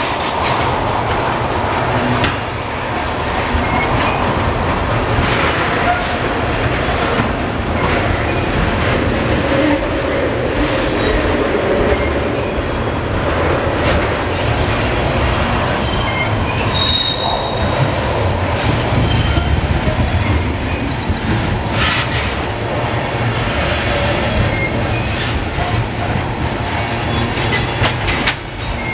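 Tank cars of a long freight train rolling past close by: a steady rumble and clatter of steel wheels on the rails, with brief high wheel squeals now and then and a sharp clank about two-thirds of the way through.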